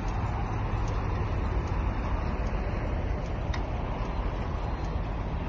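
Fowler A4 steam traction engine hauling a long road train of lorries under load, heard as a steady rumble with faint regular ticks.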